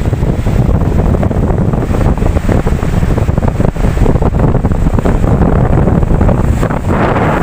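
Ocean waves washing on the shore, with wind buffeting the microphone in a steady low rumble. Near the end a wave surges in with a louder, brighter hiss.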